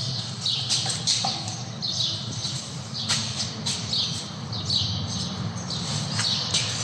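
A bird chirping over and over, a short falling chirp about once a second, over a steady low hum, with a couple of light clicks.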